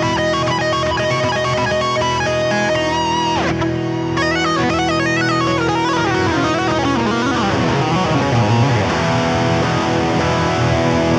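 Electric guitar through an Electro-Harmonix Freeze sound retainer: a frozen note holds steady underneath, like a keyboard pad, while lead lines are played over it. About six seconds in it turns to a thicker, noisier wash with low notes sliding, and it cuts off suddenly at the end.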